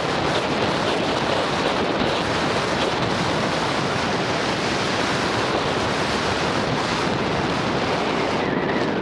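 Steady, loud wind rush on the microphone of a Garmin VIRB 360 action camera as a mountain bike descends at speed.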